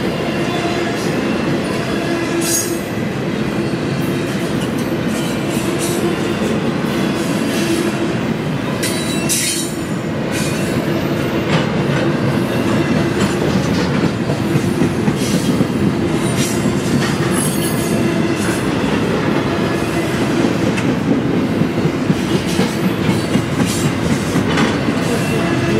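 Intermodal freight train's double-stack well cars rolling past: a steady heavy rumble with wheels clicking over the rail, and several brief high-pitched wheel squeals.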